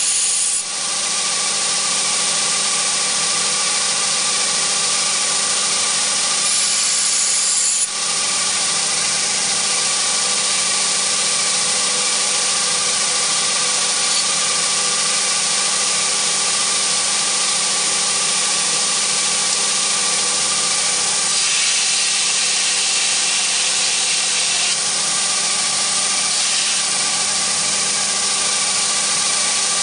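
Belt grinder running steadily, a motor hum and belt whir under a constant hiss. The harsher rasp of a steel knife blade held against the abrasive belt at the contact wheel comes and goes, strongest around seven seconds in and again from about twenty-one to twenty-five seconds.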